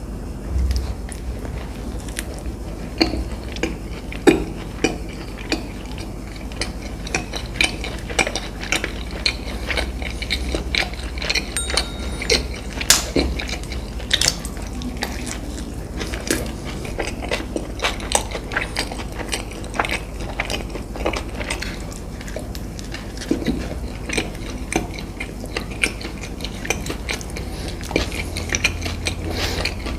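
Close-miked eating: food being bitten and chewed, with many small sharp clicks and crackles throughout.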